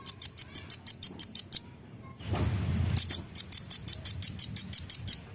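Velvet-fronted nuthatch calling in two rapid runs of sharp, high, evenly repeated notes, about seven a second. The second run starts about three seconds in, after a brief low rumble.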